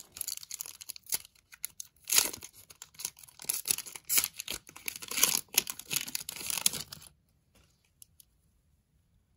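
A hockey card pack's wrapper being torn open and crinkled by hand: a run of crackly tearing and rustling that stops about seven seconds in.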